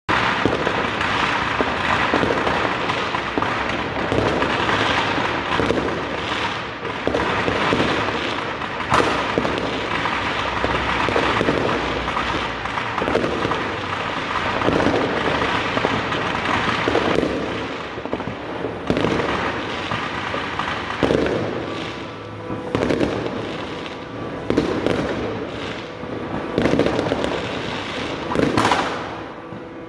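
Fireworks going off continuously: a dense run of bangs and crackling with frequent sharp reports.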